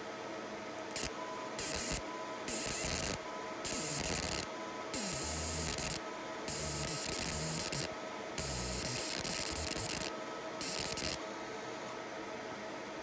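Laser marking machine with a rotary chuck engraving a metal rod in split (segmented) mode: about eight short bursts of hiss, each under a second, with brief pauses between them as the rod is turned to the next section. A steady machine hum runs underneath.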